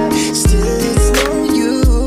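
Background music with a steady beat: deep kick drum about twice a second under sustained melody notes.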